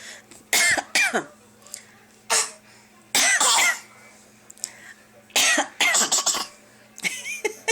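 A young child putting on fake coughs on request: about six short, throaty coughing bursts, the longest a little over three seconds in.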